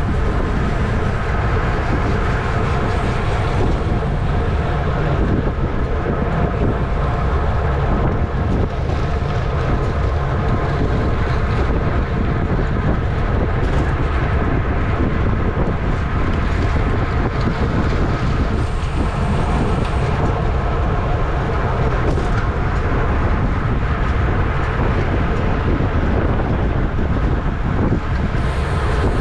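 Wind rushing over a racing bicycle's camera microphone at race speed, loud and steady, with a faint steady hum underneath.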